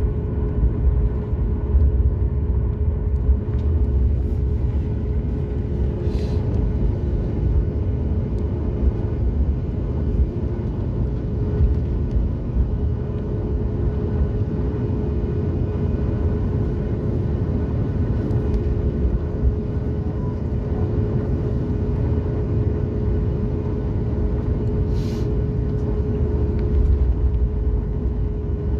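Boeing 737 MAX 8 cabin during taxi: its CFM LEAP-1B engines run at low thrust with a steady hum and a held tone, over a deep rumble. A brief hiss sounds twice, about 6 seconds in and again near the end.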